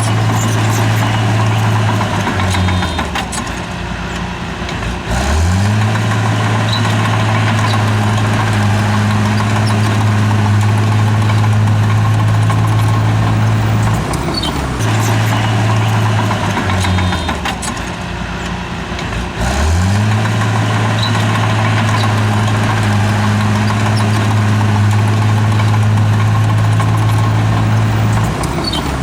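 Bulldozer's diesel engine running at high revs, its pitch sagging twice for a few seconds and climbing back each time.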